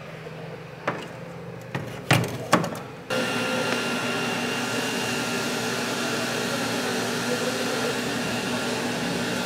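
A few sharp clicks and knocks, then from about three seconds in a steady motor hum with a thin high whine: glaze-spraying equipment running in a spray booth.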